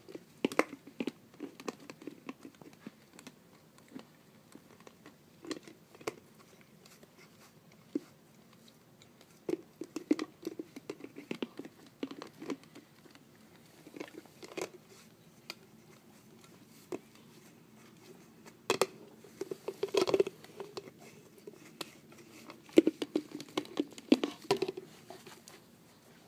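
Chocolate Lab / Weimaraner mix licking and chewing crunchy peanut butter out of a large plastic jar: irregular wet smacks of tongue and mouth with clicks of teeth and claws on the plastic, coming in bursts with short pauses and louder in the last third.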